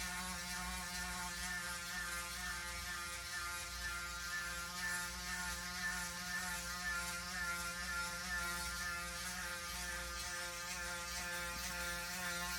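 Braun Series 9 Pro electric foil shaver running steadily with a buzzing hum as it goes over a spot on a shaved head.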